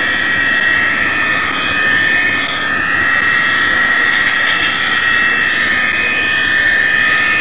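A LokSound sound decoder in an H0 model Class 66 locomotive playing diesel engine sound through its small speaker, running steadily with a high whine on top.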